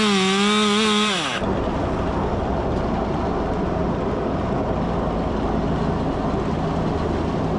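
Chainsaw running at full throttle, its pitch dipping slightly before the throttle is let off about a second in. It then drops to a rough, steady low idle.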